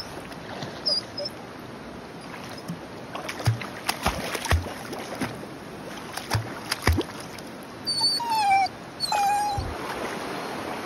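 A dog whining twice near the end, the first whine falling in pitch, over the steady rush of shallow river water, with several short knocks in the water before it.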